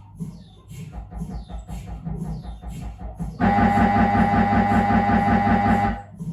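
Siemens Magnetom Avanto 1.5T MRI scanner's gradient coils running imaging sequences. A soft, fast low pulsing starts about a second in, then a loud steady buzz with a strong high tone sets in just past halfway and cuts off suddenly near the end.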